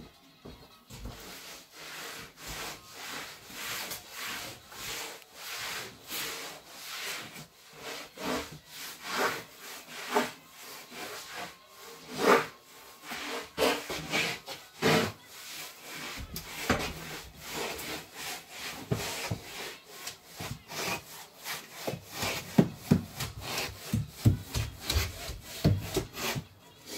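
Bus floor being scrubbed by hand with rhythmic back-and-forth strokes, repeated steadily.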